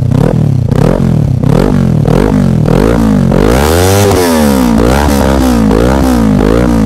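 Kawasaki Ninja 400 parallel-twin engine revved over and over through a small aftermarket slip-on muffler, giving a deep exhaust note. The quick throttle blips come about two or three a second, with one longer, higher rev near the middle.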